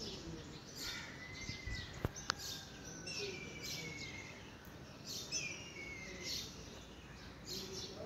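Small birds chirping repeatedly, with a few longer whistled notes that slide slightly downward, over a steady outdoor background hum. Two sharp clicks come close together about two seconds in.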